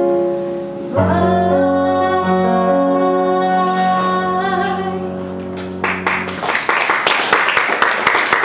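A song ends on a long held chord while a woman sings the final note with a slight waver. About six seconds in, the audience breaks into applause.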